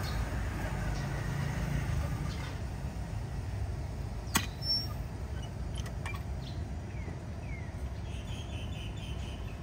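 Roadside traffic noise: a low, steady rumble of passing vehicles, louder in the first two seconds, with one sharp click about four seconds in.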